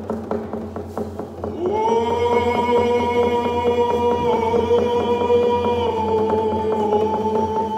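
Several frame hand drums beaten together in a steady, fast beat. About a second and a half in, singing enters on one long held note that slides up into pitch and dips slightly near the end.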